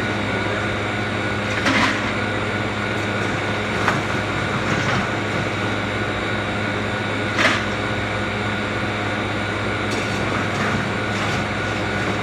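Manitowoc commercial ice machine running: a steady hum of its compressor and condenser fan with a low drone and a couple of fixed whining tones, with a few brief knocks about two, four and seven and a half seconds in.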